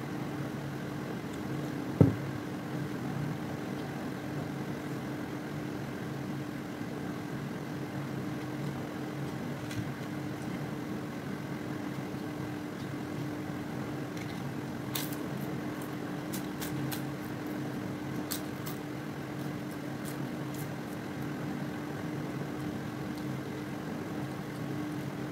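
A steady low hum throughout. About two seconds in, one sharp clank as a steel bowl is set down, and a little past the middle a run of light clicks as fingers mix rice against a stainless steel plate.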